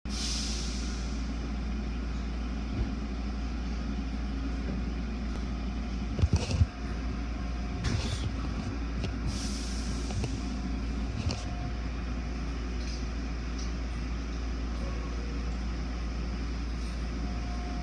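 Automatic car wash running: a steady low rumble of machinery and spraying water, with a few loud knocks about six seconds in and smaller ones later.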